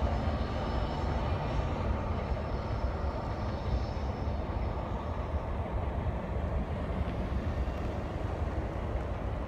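Freight train of old boxcars rolling along the rails while moving away: a steady low rumble, with faint high ringing that dies away about four seconds in.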